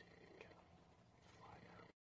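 Near silence: faint outdoor background hiss, with a couple of soft, indistinct sounds about half a second and a second and a half in.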